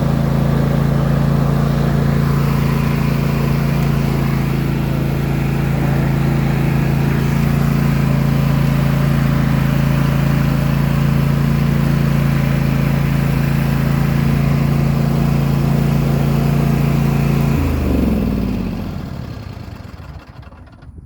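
Craftsman T260 riding lawn tractor's engine running steadily at working speed, then winding down in pitch and stopping about eighteen seconds in as it is shut off.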